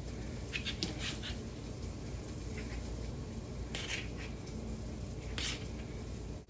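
A kitchen utensil scraping several times in short strokes, over a steady low hum.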